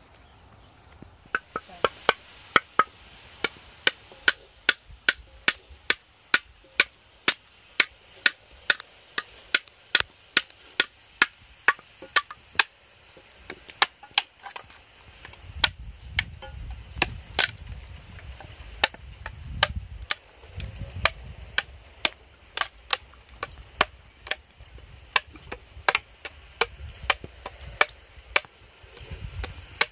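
Large curved knife striking a coconut again and again, about two sharp, hard knocks a second, as the coconut is chopped at by hand.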